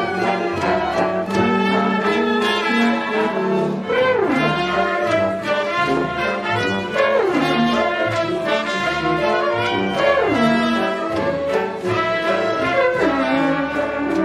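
Brass instruments playing a lively tune together, with a downward slide in pitch about every three seconds, four times in all.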